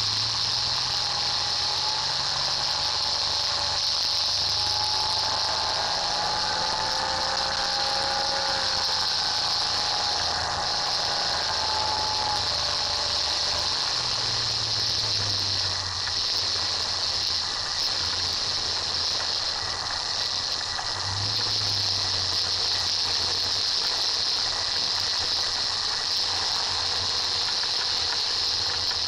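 Rotax 582 two-stroke engine of a Chinook ultralight under a steady high hiss of wind, heard through the wing camera during the approach and landing. A wavering whine rises over it in the first third, and the engine note shifts twice with throttle changes.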